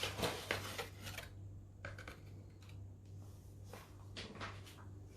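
A spoon scraping and tapping against a bowl as dry flour is spooned in, loudest in the first second, then a few fainter scrapes.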